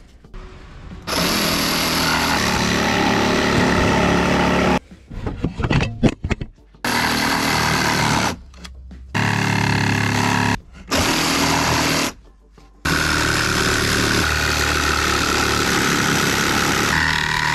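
Jigsaw cutting notches into 3x2 CLS softwood timber. It runs in several long bursts with short stops between them, and a few knocks sound in the first stop.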